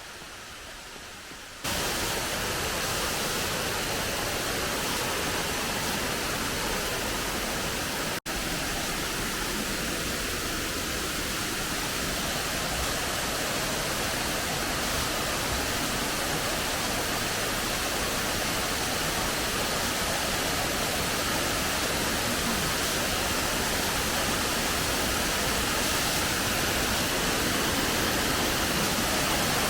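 Steady, even rushing noise that starts abruptly about two seconds in, with a split-second dropout near eight seconds.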